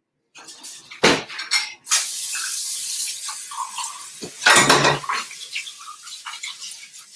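Kitchen clatter with running water: a knock about a second in, then a tap running for a second or two and fading, and a loud clunk of pots or dishes about halfway through.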